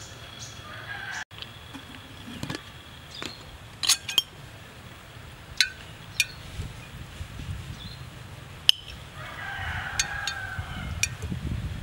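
Metal spoon clinking against a glass jar in a series of sharp taps as eggs are scooped out. A rooster crows once near the end.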